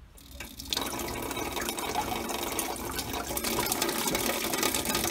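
Water begins pouring out of a zinc gutter downspout into the filler opening of a blue plastic rain barrel, starting within the first second and then running steadily.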